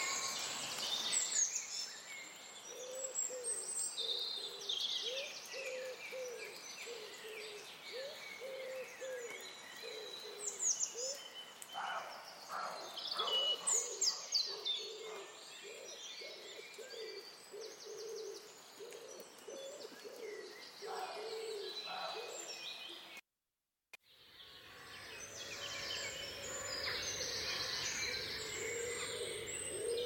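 Dawn chorus: many songbirds singing over one another, with a low call repeated about twice a second underneath. After a brief dropout about three-quarters of the way through, a second dawn chorus starts with woodpigeons cooing under the songbirds.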